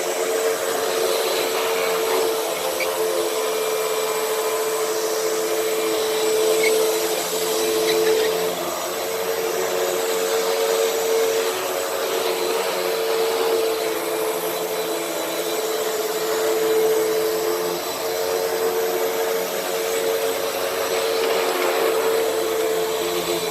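Hoover WindTunnel upright vacuum running on a rug: a steady motor whine over the rush of air, its loudness swelling and dipping a little.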